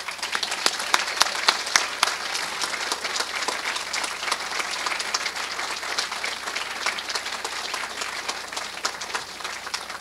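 Audience applauding to welcome a speaker to the podium, many hands clapping steadily, a little louder in the first couple of seconds.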